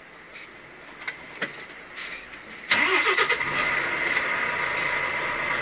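A Volvo lorry's diesel engine starts suddenly a little under halfway through, its pitch rising briefly as it catches, then runs on at a steady idle.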